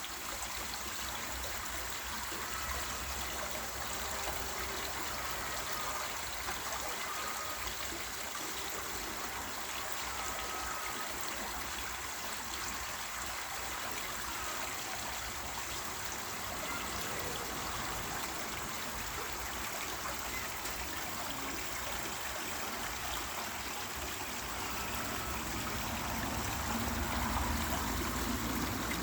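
Artificial waterfall: a steady rush of water falling and splashing.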